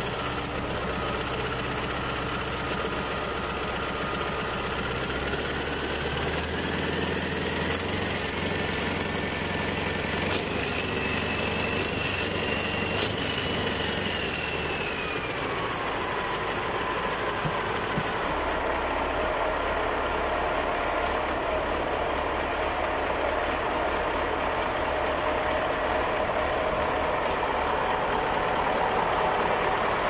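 Freshly rebuilt Caterpillar 3408 V8 diesel engine running on its first run after the rebuild. Its speed rises slowly over several seconds, holds briefly about halfway through, then drops back to idle and runs on steadily.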